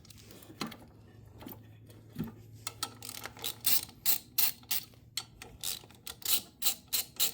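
Hand ratchet wrench with a 10 mm socket clicking as bolts are loosened. The clicks are scattered at first, then come in a fast, dense run from about three seconds in.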